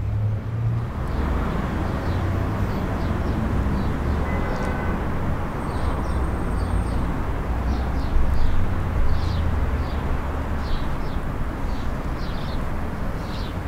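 Outdoor background noise: a steady low rumble with short, high chirps scattered through it.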